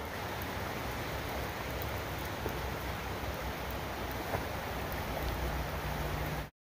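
Steady hiss of light rain, with scattered faint drip ticks; it cuts off suddenly near the end.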